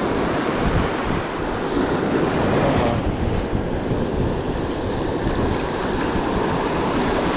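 Ocean surf breaking and washing up the sand at the water's edge in a steady rush, with wind buffeting the microphone.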